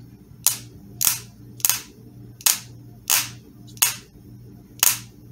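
Toyota coil-on-plug ignition coil pack firing into an inline spark tester, a sharp snap each time its primary lead is pulsed on the battery: seven snaps at an uneven pace, about one every second or less. The coil is sparking strongly, a sign that it is in good condition.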